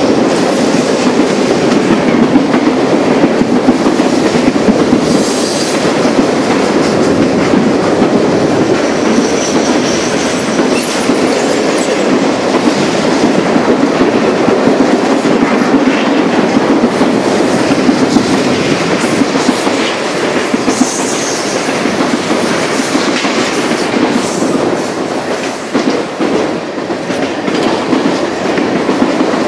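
Freight train cars rolling past at close range: a steady loud rumble and clatter of wheels on the rails, with a few brief high squeals from the wheels on the curve.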